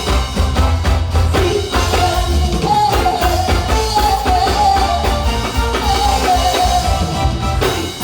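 Live soca music with a steady drum beat, and a singer holding one long, slightly wavering note from about two seconds in.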